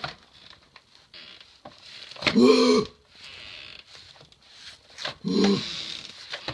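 A woman's wordless nervous cries, twice, each short and arching in pitch, between quieter scraping and knocking as a stick vacuum's floor head is poked along the floor and baseboard behind a door.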